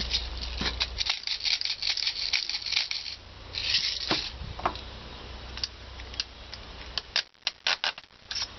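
Airsoft BBs clicking and rattling as they are pushed from a tube loader into a G36 gas blowback rifle magazine. A quick run of small clicks comes first, then a brief rattle about four seconds in, then scattered single clicks.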